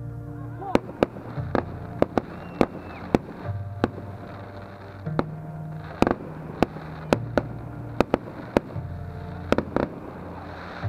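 Aerial fireworks bursting: a string of sharp bangs at irregular intervals, well over a dozen, some coming in quick pairs.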